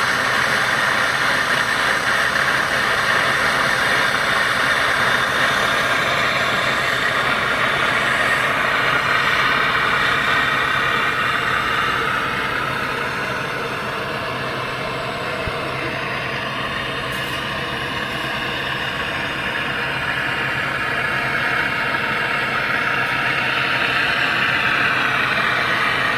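Brazing torch flame hissing steadily on copper pipe, easing a little about halfway through and building again near the end.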